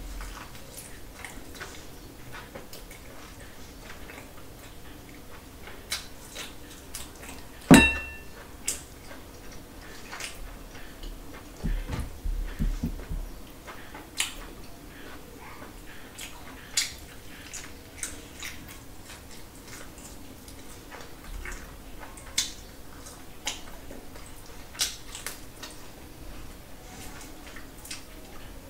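Close-up eating sounds of chicken being eaten by hand: chewing, wet mouth noises and scattered small clicks. A single sharp, ringing clink of a dish comes about eight seconds in, and a few soft thumps follow a few seconds later.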